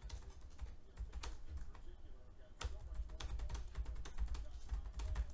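Typing on a computer keyboard: a run of short, irregular key clicks.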